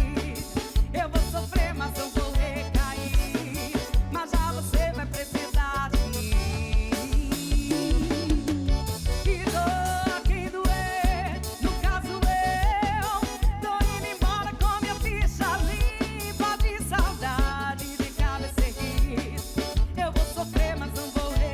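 Live band music with a drum kit keeping a steady beat, about two beats a second, under a melodic line that bends in pitch.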